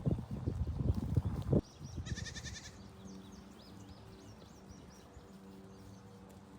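A run of quick knocks and thumps for about a second and a half, then a single goat bleat about two seconds in. After the bleat it falls quieter, with faint short high chirps over a steady low hum.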